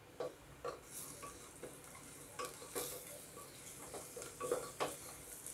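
Wooden spatula stirring and scraping ground spices and onions in hot oil in a pressure cooker, with scattered light scrapes and knocks over a faint sizzle: the masala being fried.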